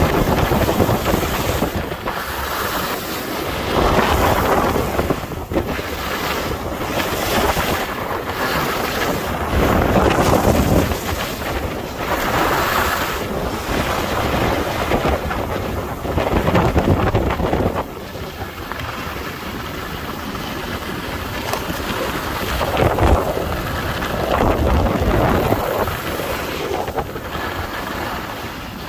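Wind rushing over the microphone of a camera moving fast down a groomed ski slope, mixed with the hiss and scrape of edges carving the snow, swelling and easing with each turn.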